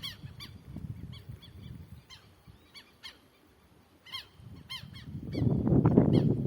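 Southern lapwings (tetéu) calling repeatedly: sharp, high notes in short runs of several, with a quieter gap in the middle. A loud low rumble comes in near the end.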